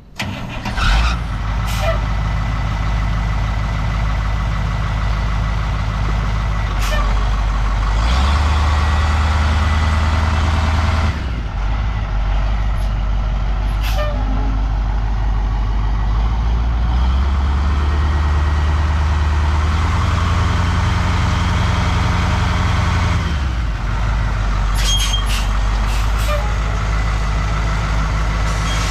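The 1983 Ford 8000 truck's engine starts up in the first second and then runs steadily. Its engine speed is raised twice, for about three seconds a little after the start and for about six seconds in the second half, dropping back to idle each time. A few sharp clicks sound over the running engine.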